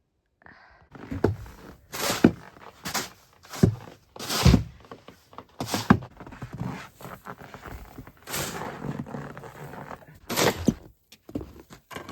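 Deep snow crunching and thudding in an irregular series of heavy strokes, roughly one a second.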